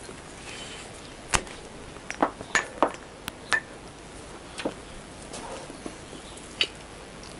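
Short sharp metal knocks and clanks, about eight in all, as a Honda CBR1000F's frame is heaved and shifted against its engine to free it; the loudest comes just over a second in, with a quick cluster of knocks soon after.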